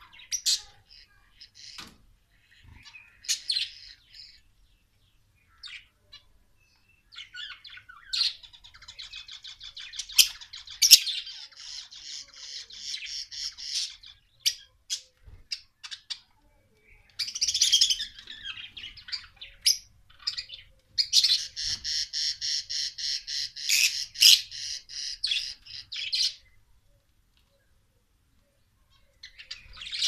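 Caged budgerigars and cockatiels chirping and squawking in bursts, with two long stretches of fast, rapid chatter. They fall quiet for a few seconds near the end.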